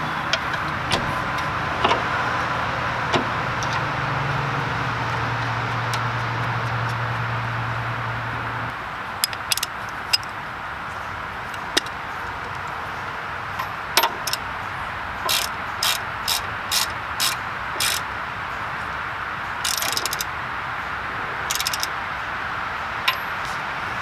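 Ratchet wrench clicking in short back-and-forth strokes, about two a second in the second half, while tightening a tie rod end nut. A low steady hum runs under the first half and stops about nine seconds in.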